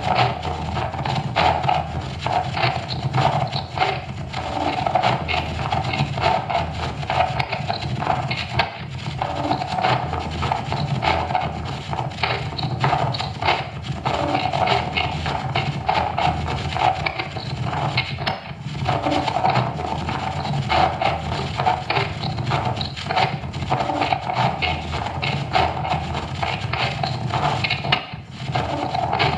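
Experimental noise music: a dense, unbroken noise texture packed with rapid clicks, with no clear melody, dipping briefly near the end.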